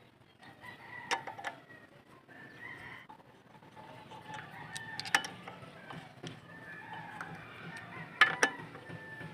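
Chickens clucking and a rooster crowing in the background, broken by several sharp clicks and knocks, the loudest two close together about eight seconds in.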